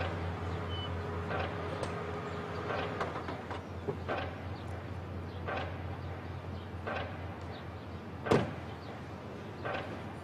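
A saloon car's engine runs as the car parks and is switched off about three seconds in. A car door shuts with a loud thud a little over eight seconds in, among fainter knocks about every second and a half.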